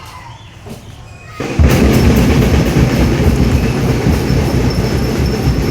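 Loud parade music starts suddenly about a second and a half in, dense and heavy in the low end, from a marching drum band or its accompanying sound system.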